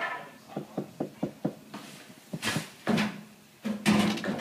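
Work on brick coping: about five light taps or knocks in quick succession, then louder scraping bursts.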